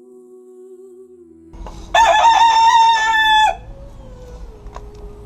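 A rooster crowing once, a loud call lasting about a second and a half, starting about two seconds in, over a faint steady hum.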